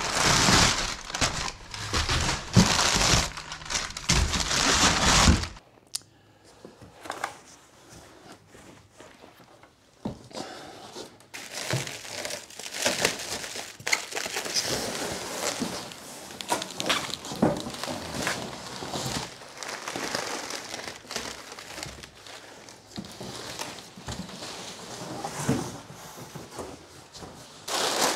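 Crumpled packing paper and bubble wrap rustling and crinkling as they are handled and pulled out of a cardboard box. It is loud and close for the first five seconds or so, stops suddenly, then goes on quieter as scattered crinkles and crackles.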